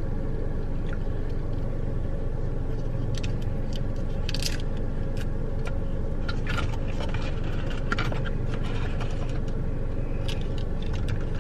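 Steady low rumble inside a car, with scattered light clicks and crackles of plastic sauce cups and packaging being handled.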